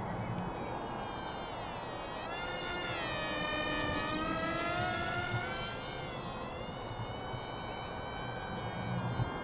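Buzzing whine of the XK A120 RC model airliner's small electric motor and propeller in flight, its pitch dipping a few seconds in and rising again, loudest in the middle as the model passes.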